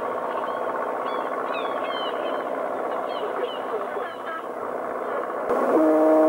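Near the end, a ship's horn sounds one loud steady blast. It starts with a short upward slide in pitch and rises above a continuous background din that carries scattered high chirping calls in the first half.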